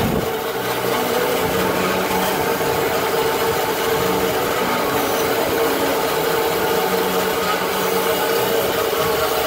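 Automatic band-saw cotton roll cutting machine running, its blade slicing a cotton roll into discs. It makes a steady mechanical drone with a constant whine.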